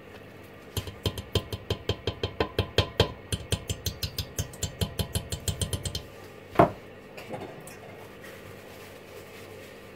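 Whisk beating thick, gelled hot-process soap in a stainless steel pot, clacking against the pot about five times a second for some five seconds. One sharp, louder knock on the pot follows about six and a half seconds in, then a couple of light taps.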